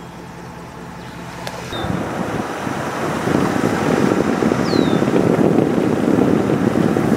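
Vehicle driving on a gravel road: a quieter steady hum, then from about two seconds in a loud rush of tyre, engine and wind noise that builds, with wind buffeting the microphone mounted over the hood.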